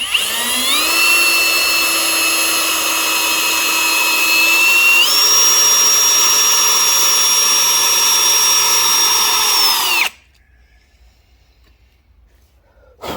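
Electric drill drilling into a broken bellhousing bolt in a small-block Chevy 350 block, with a dull bit. The motor whine spins up, runs steadily, steps up in pitch about halfway through, and winds down about ten seconds in.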